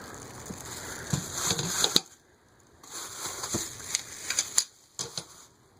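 Unpacking noise from a boxed ceiling fan: packaging rustling and scattered clicks and knocks as parts are handled, with a sharp click about two seconds in.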